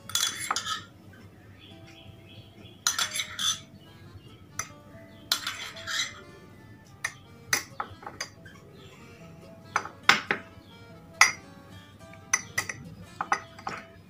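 A metal spoon scraping and clinking against ceramic dishes as spoonfuls of milk are scooped from a bowl into a mug, in three bursts. Sharper single clinks of metal cutlery on the ceramic mug follow.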